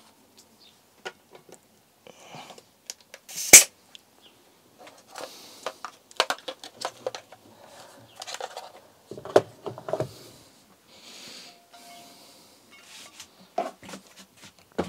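Workshop handling noises: scattered clicks and knocks, with one sharp, loud click about three and a half seconds in and a few short hisses.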